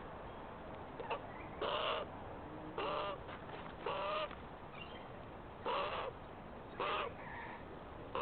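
Australian magpie giving a series of short, harsh calls, about six in all and roughly a second apart.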